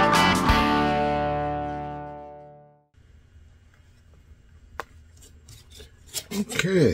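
Guitar background music, strummed and plucked, fading out over the first three seconds. After it, faint clicks and rustles of thread being pulled through leather in hand-stitching, with a short murmured voice sound near the end.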